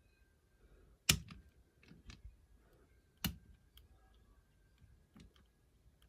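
Metallic clicks and light ticks from a lever-lock pick working the levers of a 5-lever mortice lock, with sharp clicks about a second in and about three seconds in.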